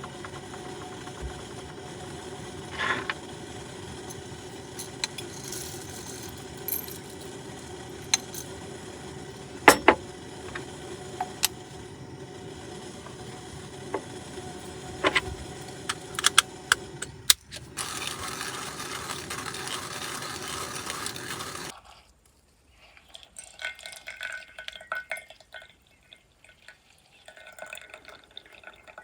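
Cooking: metal utensils and cookware clink and tap over a steady hiss. The hiss grows louder briefly, then cuts off suddenly about three-quarters of the way through, followed by scattered clatter and handling sounds.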